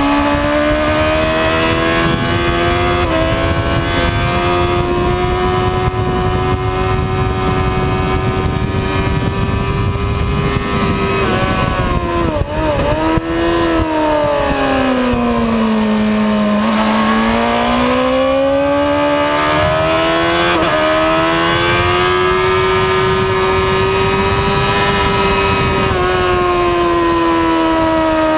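Motorcycle engine at high revs under power, with wind rush at speed. A little under halfway the revs drop with a few quick blips as the rider brakes and downshifts into a slow corner, then climb again through the gears.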